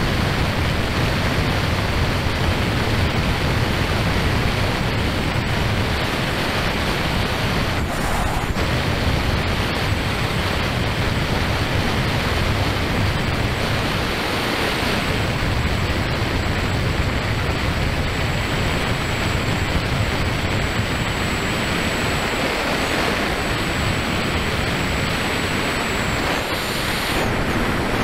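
Steady rush of wind and riding noise from a Kawasaki KLR650 motorcycle cruising at road speed, with wind buffeting the bike-mounted camera's microphone.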